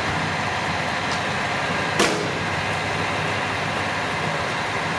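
A JR Hokkaido 733 series electric train standing at the platform, its onboard equipment giving a steady hum and hiss, with one sharp clank about two seconds in.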